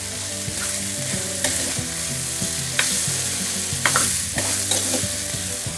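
Sprouted field beans and potato pieces sizzling in oil in a stainless steel pan as a steel spoon stirs them, scraping and clicking against the pan a few times.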